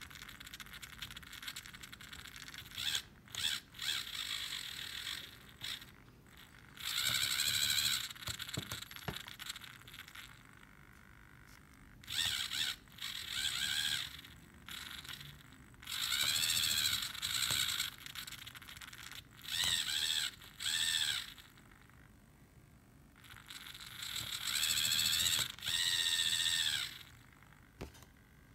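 Pneumatic syringe prototype in action: its gear-and-rack mechanism drives the syringes in about ten short runs of one to two seconds, with pauses between. Each run is a whine that rises and falls in pitch.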